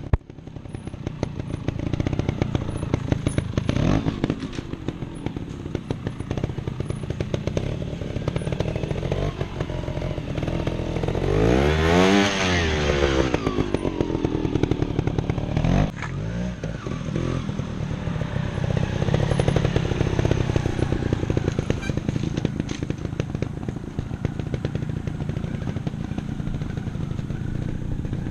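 Trials motorcycle engine running at low revs close by, pulsing steadily with small throttle changes. About twelve seconds in it revs up sharply and falls back.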